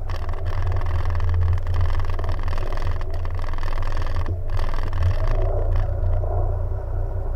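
Jet ski engine running with a steady low drone, under a hissing noise that thins out about six seconds in.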